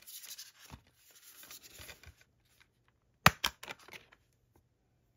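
A paper insert and a Blu-ray steelbook being handled: paper rustling for about two seconds, then two sharp clicks a fraction of a second apart about three seconds in.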